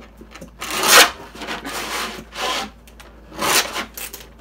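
Plastic glue pens and glue bottle being handled and pushed against a plastic holder: a series of about five raspy rubbing sounds, the loudest about a second in.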